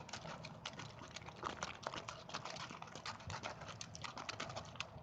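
Glue-and-laundry-detergent slime being stirred with a popsicle stick in a container, making quick irregular sticky clicks and smacks as it thickens.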